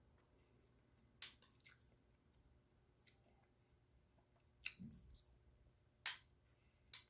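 Faint close-up eating sounds: about nine short, sharp clicks and moist taps at irregular moments, as of chewing and handling food.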